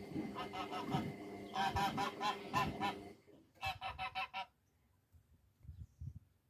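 Repeated honking bird calls in two quick bouts, the second stopping about four and a half seconds in, over a low rumble.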